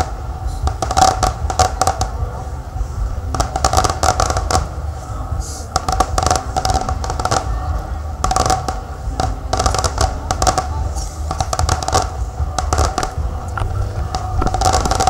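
Fireworks bursting and crackling in repeated clusters every second or two, over a steady low rumble.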